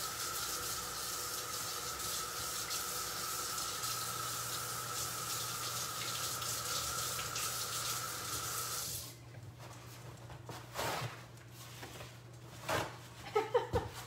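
Kitchen tap running into the sink while a stirring spoon is rinsed of sour cream, shut off about nine seconds in; a few short knocks and clatters follow.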